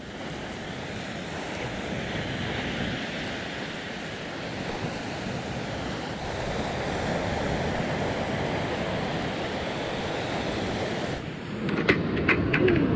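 Ocean surf breaking on a beach: a steady rushing wash of waves, with wind on the microphone. About eleven seconds in the wash drops away and a few sharp clicks follow close by.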